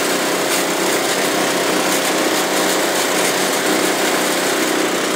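Steady engine noise of a diesel Kawasaki Mule UTV driving along, together with the small gasoline engine that runs the pump on its sprayer.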